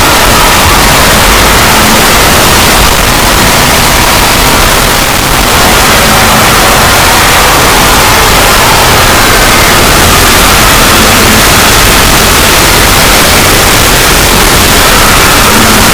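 A logo sound effect amplified far past full scale, clipped and distorted into a harsh, steady wall of noise with only faint traces of the original tones.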